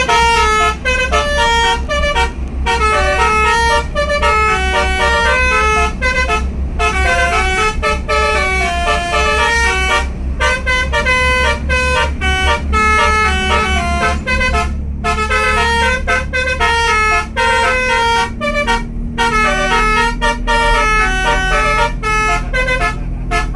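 Telolet basuri bus horn, a multi-trumpet air horn, playing a melody of short stepped notes with brief pauses, over the low drone of the bus engine running.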